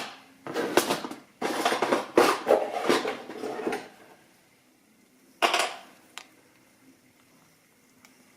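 Small metal tools clattering and rattling as they are sorted through by hand for about four seconds, then a single louder clack of metal set down, followed by a small click.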